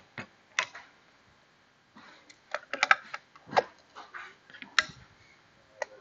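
Scattered light clicks and knocks as the limit switch box's top cover with its indicator dome, and its screws, are handled and set in place on the box.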